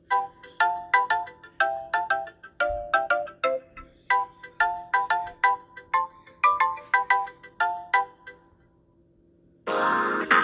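A Samsung Galaxy S25 ringtone playing: a bright, repeating melody of short plucked or struck notes that stops about eight seconds in. After a brief pause a louder, denser tune, the next ringtone, starts just before the end.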